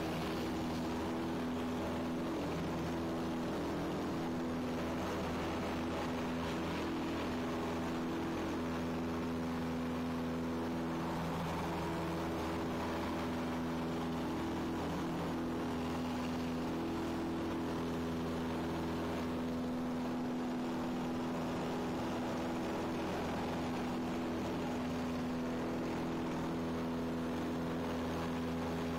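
Cessna Skyhawk's piston engine and propeller running steadily at climb power just after takeoff, a constant drone heard from inside the cabin.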